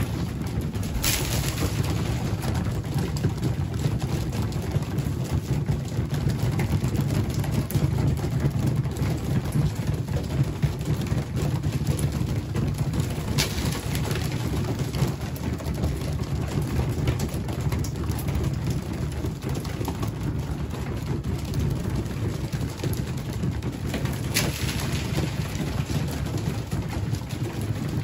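A dense flock of young pigeons feeding: a steady patter of many beaks pecking at food on the floor, with low pigeon cooing underneath. Three brief sharper sounds stand out about a second in, about halfway through, and near the end.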